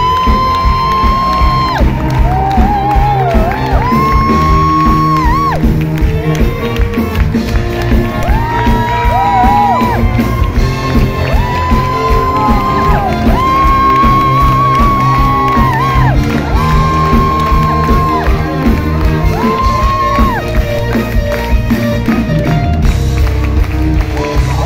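Musical-theatre curtain-call music playing loud in the theatre: a high melody of long held notes, phrase after phrase, over full accompaniment. Under it the audience claps, cheers and whoops.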